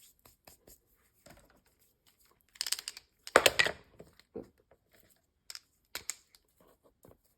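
Scratching and crinkling as glued-on fake snow is scraped off a laser-cut wooden ornament piece. The noise comes in short scrapes and ticks, with a louder rough stretch about halfway through.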